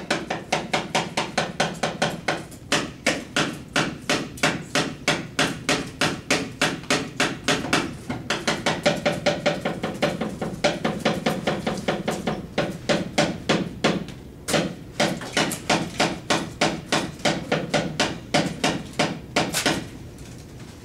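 Rapid, even knocking at about four strokes a second, with a short ringing after each stroke. This is the dalang's cepala knocker beating on the wooden puppet chest to drive a battle scene in Balinese shadow puppetry. It breaks off briefly about two-thirds through and stops shortly before the end.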